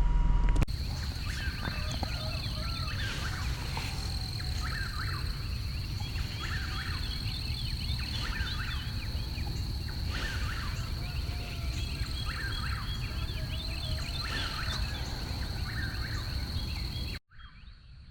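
Dawn field ambience: a wild turkey gobbler gobbling from its roost among a chorus of a bird calling over and over at an even pace, with a steady high insect-like trill and low wind rumble. It starts suddenly just after the beginning and cuts off abruptly near the end.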